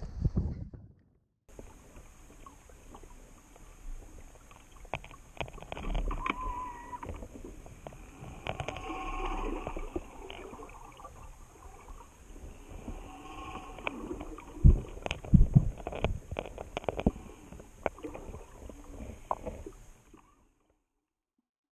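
Water heard through a submerged camera: muffled gurgling and bubbling with scattered clicks and knocks, and a cluster of louder knocks about two-thirds of the way through. It starts after a second or so of silence and cuts off suddenly near the end.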